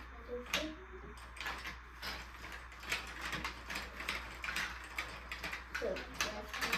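Marbles clattering and rolling down a toy marble run: a fast, irregular stream of small clicks and knocks.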